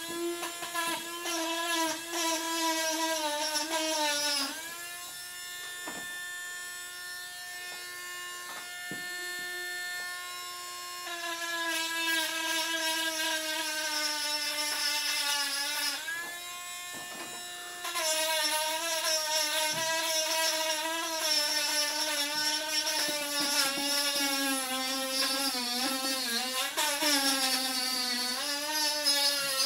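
Small handheld rotary tool grinding a pruning wound smooth on a Japanese maple trunk. Its motor whine wavers and sags in pitch as the bit bears on the wood, and runs steadier, a little higher and quieter when it is eased off, once for several seconds a few seconds in and again briefly past the middle.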